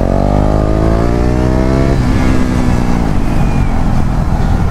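KTM Duke 390's single-cylinder engine accelerating: its pitch climbs, drops suddenly at an upshift about two seconds in, and climbs again before blending into a steady rushing noise near the end.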